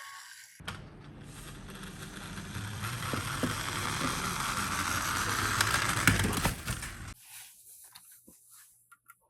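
Die-cast toy ambulance minicar rolling down a slope: a rattling rolling noise with a low rumble that grows louder and stops abruptly about seven seconds in.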